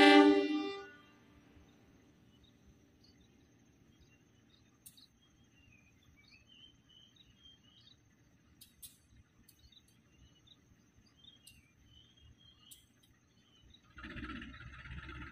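Locomotive air horn sounding a chord, trailing off within the first second. Faint birds then chirp over quiet trackside ambience, with a few soft clicks, and a short rush of noise comes near the end.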